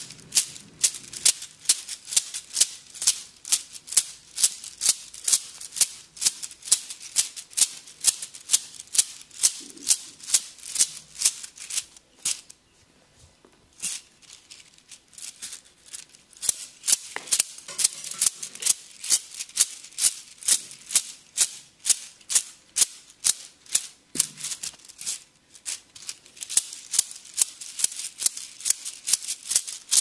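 Bamboo sticks tapping rapidly on a person during a massage: a sharp, even clacking of about two to three strikes a second, which stops for about a second and a half about twelve seconds in and then resumes.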